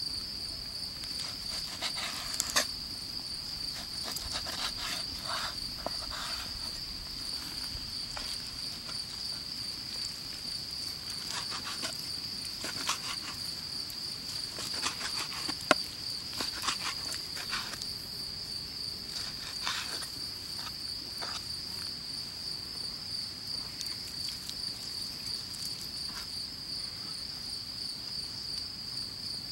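Crickets trilling steadily in a high, evenly pulsing chirr. Over them come scattered knocks of a steel cleaver cutting raw meat against a wooden cutting board, a few of them louder.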